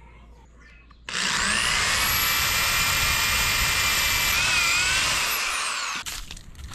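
Black & Decker electric drill starting up about a second in with a rising whine and boring into a wooden stock. The whine wavers under load, then winds down.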